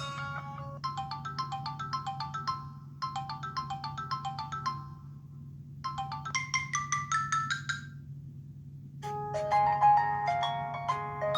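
Samsung Galaxy Young 2 stock ringtones playing: a short bell-like melody repeats twice with brief gaps, a rising run of notes follows, then a different, louder ringtone starts about nine seconds in.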